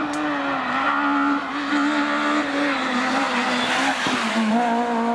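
Rally car engine running hard at high revs as the car passes close by, with a rush of tyre and exhaust noise swelling in the middle. The engine note dips briefly about four and a half seconds in, then climbs again.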